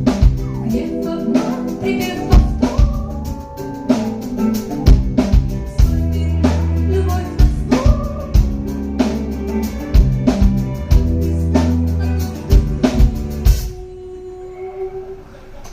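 Music: a song with a drum kit, bass and vocal melody, with a steady beat. It drops to a quieter, sparser passage about two seconds before the end.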